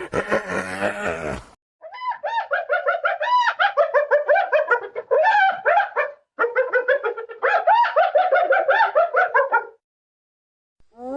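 Spotted hyena giggling: two long runs of rapid, quavering high-pitched notes, each note rising and falling, with a brief break between them. A rougher, lower call fades out in the first second and a half.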